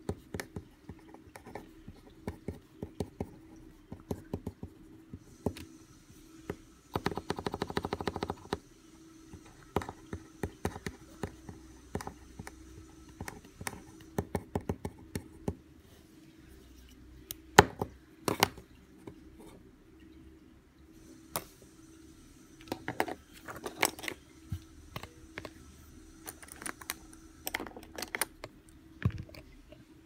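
Mechanical pencil writing on paper: the lead scratching in short strokes with many small sharp ticks, and a longer run of scratching about seven seconds in. Later come scattered clicks and knocks as the pencil is handled.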